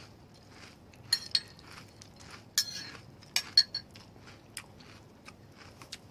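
A spoon clinking against a cup of Cocoa Pops and milk, with several sharp ringing clinks in the first two-thirds, and fainter crunching of the cereal between them.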